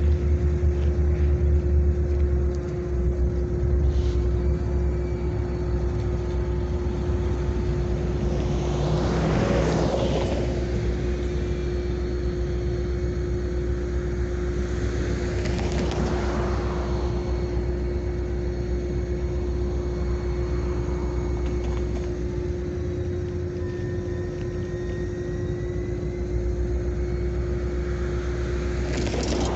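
Diesel switching locomotives running with a steady low rumble and a constant hum. Passing vehicles swell and fade about ten seconds in, again around sixteen seconds, and near the end.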